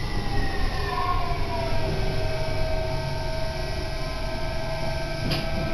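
Electric commuter train running and slowing, with a low rumble of wheels on rail and an electric motor whine that falls in pitch over the first two seconds and then holds steady, the train braking toward a station. A short knock comes near the end.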